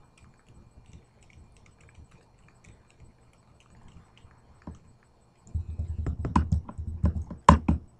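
A cat chewing on the arm of a pair of eyeglasses: faint, irregular clicks of teeth on the frame, then from about five and a half seconds in a run of louder knocks and rubbing close to the microphone, loudest near the end.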